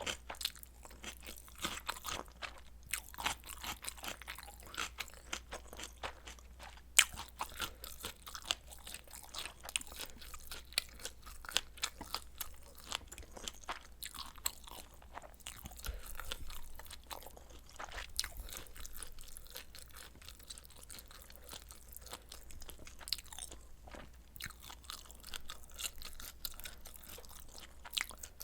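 Close-miked eating sounds: a person chewing steadily, with many irregular crisp clicks and crunches and one sharp click about seven seconds in.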